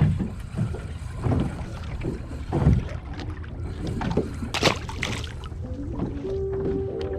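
Small boat rocking on the water, with a low wind-and-water rumble and irregular knocks and bumps on the hull, one sharp knock about two-thirds of the way through. Background music comes in near the end with a held note.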